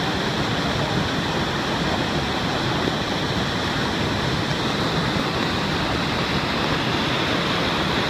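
Maira Falls in spate, swollen with muddy floodwater, pouring with a steady, unbroken rush of water.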